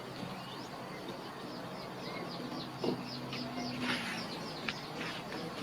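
Small bird singing a fast run of short, high, falling notes, about four or five a second, starting about halfway through, with a brief rustle-like burst about four seconds in.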